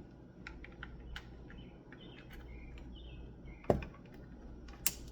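Scattered light clicks and taps of hands handling taped wires and a sign on a hard surface, with a sharp knock about three and a half seconds in and another near the end, and a few faint short high chirps in the middle.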